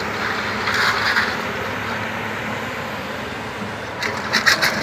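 Kobelco SK200 hydraulic excavator's diesel engine running steadily. Near the end comes a quick series of clattering knocks as its steel bucket digs into broken concrete rubble.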